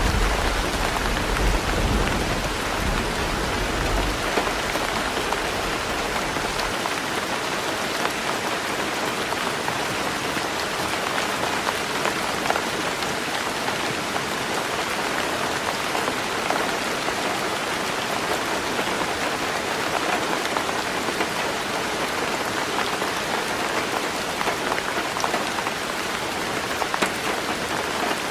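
Heavy rain falling steadily on a roof, an even patter of raindrops. A low thunder rumble dies away over the first few seconds.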